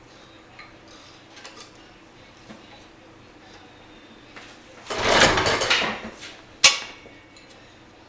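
A 1937 Johnson KA-37 two-stroke outboard motor being pull-started once: about a second of whirring as the cord spins the flywheel and the engine turns over without firing, then a sharp knock as the handle snaps back. This is the engine that won't start despite new rings and a good magneto; the owner suspects the rotary-valve crankshaft seals are not sealing.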